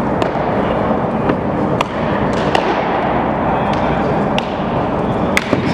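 Indoor baseball batting-cage din: a steady background noise with about eight sharp cracks and pops scattered through it, the loudest near the end, from balls striking bats, gloves and netting.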